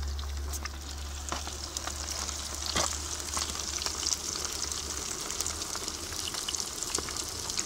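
Masala-coated fish pieces deep-frying in hot oil in an iron karahi, a steady sizzle with scattered pops and crackles.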